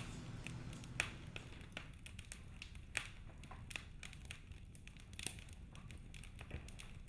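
Faint room tone with a steady low hum and scattered small clicks and taps, the clearest about one, three and five seconds in.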